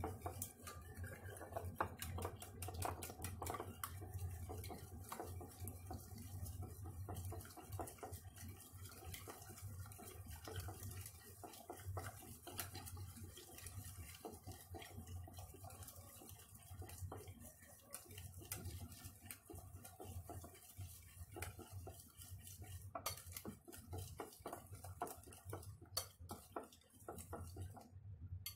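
Wire whisk beating a liquid batter of condensed milk, eggs, melted butter and vanilla in a bowl, its wires clicking and tapping rapidly against the bowl's sides throughout. A low steady hum runs underneath.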